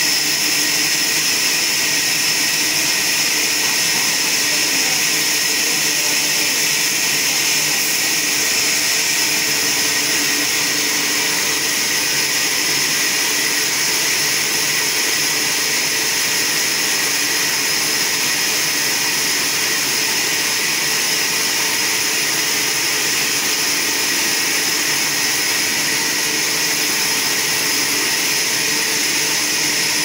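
Trolley band sawmill running steadily, its blade sawing lengthwise through a log on the rail carriage: an even, loud machine whine with a strong high hiss.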